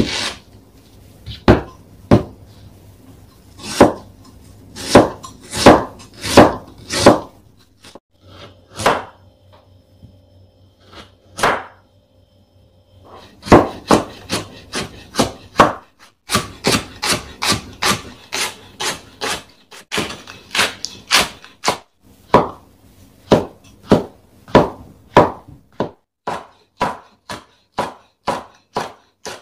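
Santoku kitchen knife cutting through vegetables and knocking on a wooden cutting board: separate, spaced-out knocks as an onion is halved and cut, then, from about halfway, quicker, even chopping strokes at about two a second as carrot is cut into thin strips and red chili is sliced.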